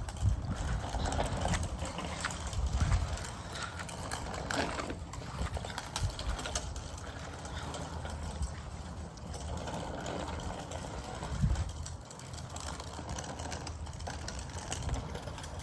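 Gusty wind rumbling on the microphone in uneven swells, over a steady hiss of wet, rainy outdoor air.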